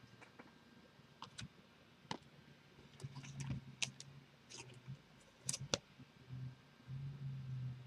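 Trading cards being handled at a table: scattered light clicks and taps as the cards are squared up and set down, some in quick pairs, with a faint low hum in stretches.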